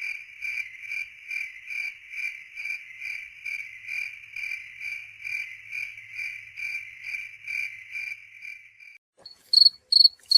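Cricket chirping in an even rhythm, about two to three chirps a second, which stops about nine seconds in. A different, higher-pitched and louder cricket chirp with longer gaps between chirps starts right after, near the end.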